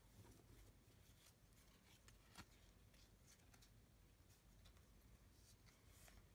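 Near silence, with a few faint soft clicks and rustles of trading cards being handled; the clearest click comes a little before halfway.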